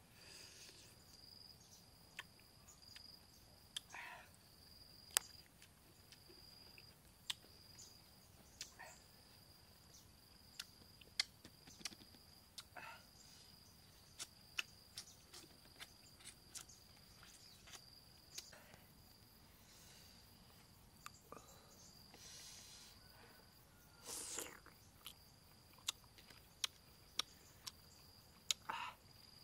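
Close-up eating sounds of a person sucking and chewing green lime segments: scattered sharp lip smacks and clicks with a few short slurps. A steady high insect trill runs underneath.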